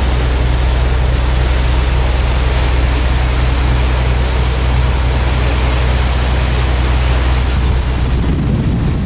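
A boat's engine running steadily underway, a deep drone with the rush of water and wind over it.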